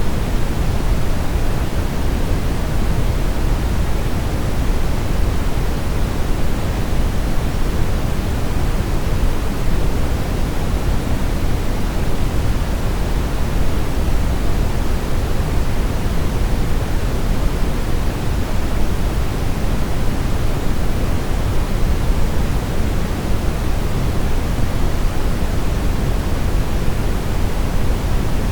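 Steady brown noise: an even, deep rushing hiss, loudest in the bass and fading toward the treble, with no changes.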